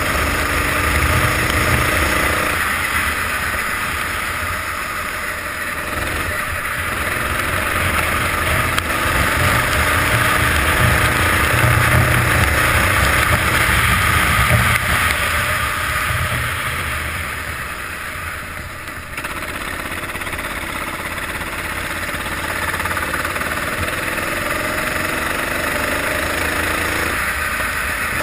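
Kart engine running on track, its pitch rising and falling as the driver accelerates and lifts through the corners, under a steady rushing noise from the onboard microphone. The level drops briefly about two-thirds of the way through.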